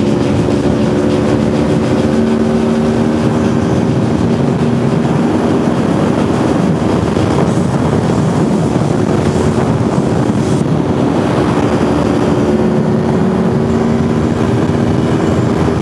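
Sport motorcycle engine running at high road speed, a steady engine note under heavy wind rush over the helmet-mounted microphone.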